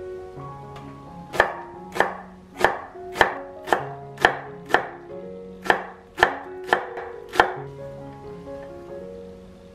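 Chef's knife slicing through a thick green onion stalk onto a wooden cutting board: about eleven crisp strikes, roughly two a second, with a short pause midway. Soft background music plays underneath.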